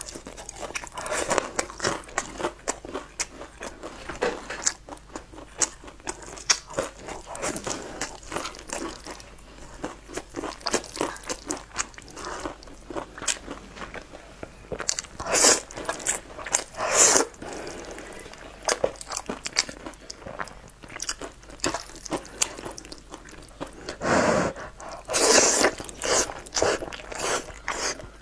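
Close-miked eating sounds: chewing and crunching of fried food and noodles, with many short wet clicks. Two louder noisy stretches come about halfway through and near the end, as noodles are slurped up.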